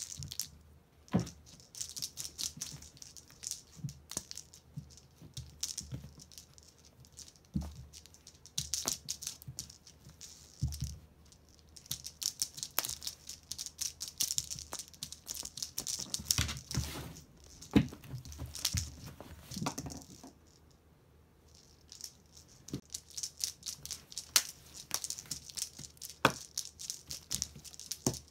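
Kittens playing with wand toys on a rug: bursts of rapid rattling and scratching scuffles from claws and toys, with a few sharper knocks. There is a short quiet pause about two-thirds of the way through.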